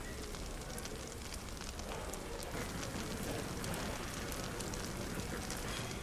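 Wood fire crackling in a fireplace: many small, sharp pops scattered over a steady hiss.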